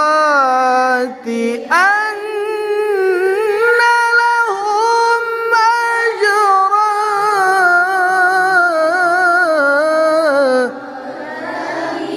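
Quran recitation in the melodic mujawwad style. A single high-pitched voice carries one long, ornamented phrase with wavering melismatic turns and holds. The phrase stops abruptly near the end and is followed by a quieter, noisier sound.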